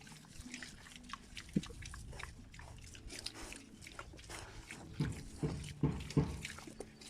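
Pigs grunting and snuffling, with a handful of short low grunts close together in the second half.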